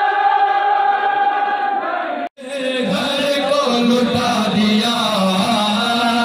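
A mourning chant sung by men's voices. A long note is held, then the sound cuts off abruptly about two seconds in and resumes with a denser stretch of group chanting.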